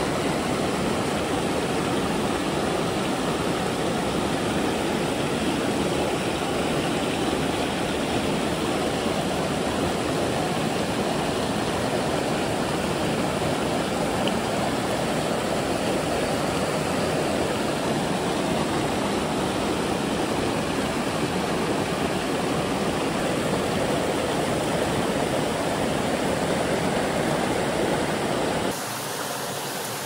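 Mountain stream water rushing steadily, close by. About a second before the end it changes abruptly to a quieter, thinner flow of water.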